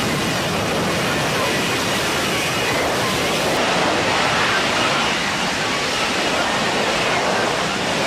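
Steady, loud jet engine roar, an even rushing noise with no clear pitch or rhythm.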